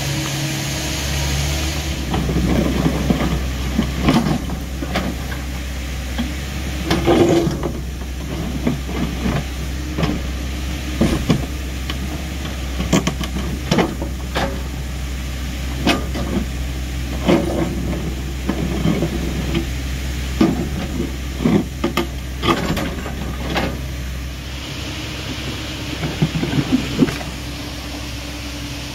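Excavator engine running steadily, louder from about two seconds in until near the end, with repeated knocks and scrapes of the bucket working earth and rock.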